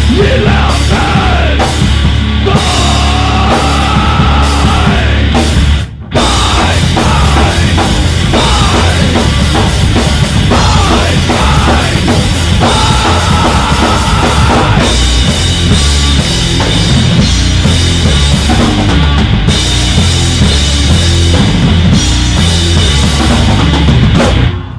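Loud rock music with a full drum kit and heavy bass. It breaks off for a moment about six seconds in, then stops abruptly near the end.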